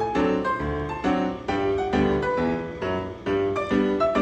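Background piano music: steady, evenly paced chords over a bass line.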